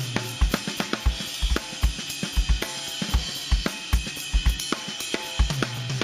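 Acoustic drum kit played as a solo: a bass drum beating steadily about two or three times a second, with snare and tom hits and a constant wash of cymbals and hi-hat.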